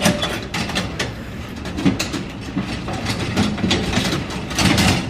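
Metal door latch and wooden door of a small pet kennel rattling and clacking as it is worked open by hand: a run of irregular clicks and knocks.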